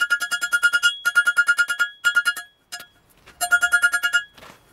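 Hammer striking hot steel on a steel railway-rail anvil in rapid runs of blows, several a second, each blow ringing with the same clear metallic tone. The runs stop briefly about two seconds in and again near three seconds.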